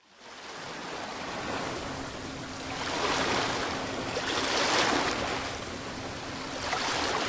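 Ocean surf washing, fading in at the start and swelling in waves, loudest a few seconds in.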